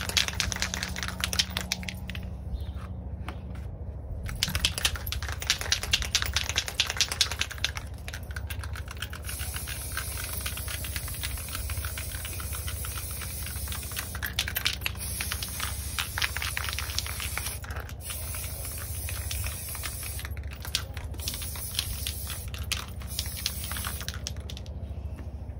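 Aerosol can of Rust-Oleum 2X Ultra Cover flat white primer spraying: a hiss with rapid clicking, in a series of bursts broken by short pauses.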